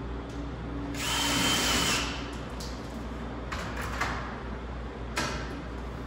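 A power drill runs for about a second with a steady whine, driving a screw into the steel stud framing. It is followed by a few short knocks.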